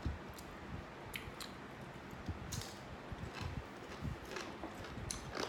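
A person chewing pieces of fresh mango, heard as irregular small clicks and soft wet thumps.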